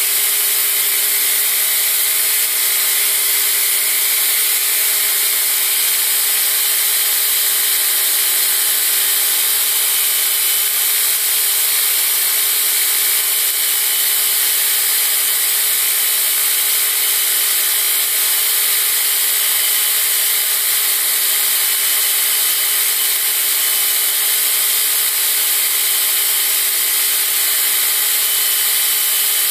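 Knifemaking belt grinder running at steady speed, a constant whirring hiss from the belt over the platen with a steady motor hum beneath, no steel being ground.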